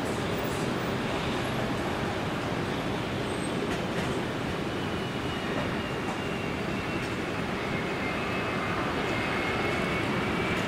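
Jet airliner engines running on the runway: a steady rumbling hiss, with a faint high whine that comes in about halfway through and slowly rises in pitch.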